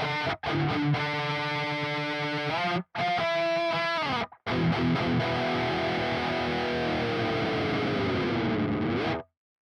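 RA600 electric guitar played through heavy distortion: chords broken by short stops, then one long held note whose pitch sags and swoops back up before it cuts off suddenly.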